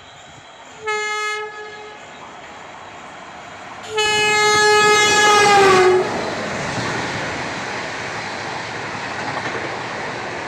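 Indian Railways locomotive horn: a short blast, then a longer one whose pitch drops as the locomotive passes at speed. The rush of the express train's coaches going by follows.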